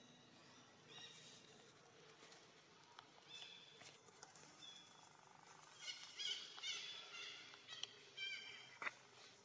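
Infant long-tailed macaque giving short, high-pitched squeaking calls: a few scattered ones at first, then a quick run of them in the second half. A single sharp click comes near the end.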